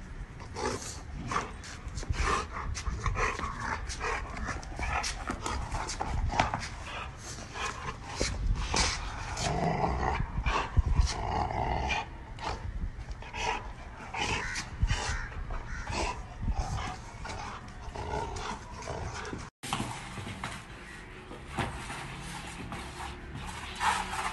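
Rottweiler growling as it plays rough, among a steady run of scuffles and knocks. The sound drops out for an instant about four-fifths of the way through.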